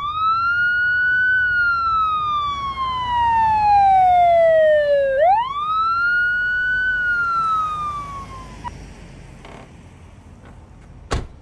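Emergency-vehicle siren wailing: two sweeps that each rise quickly and then fall slowly in pitch, cutting off abruptly about nine seconds in. A single sharp click comes near the end.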